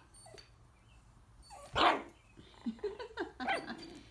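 Young Coton de Tulear puppies play-fighting. A single loud, sharp bark comes about halfway through, followed by a run of short yips and growls.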